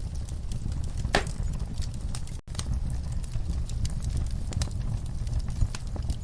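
Log fire crackling: irregular sharp pops and snaps over a steady low rumble of burning wood, with one louder pop about a second in. The sound cuts out for an instant about two and a half seconds in.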